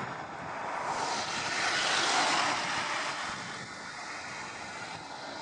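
Bombardier Dash 8 Q400 turboprop at takeoff power, its two engines and propellers running as it accelerates down the runway and lifts off. The roar swells to a peak about two seconds in, then eases as the aircraft climbs away.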